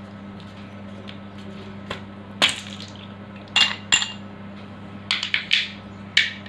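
Ice cubes dropped one after another into a drinking glass, clinking sharply against the glass seven or so times at uneven intervals, several close together near the end. A steady low hum runs underneath.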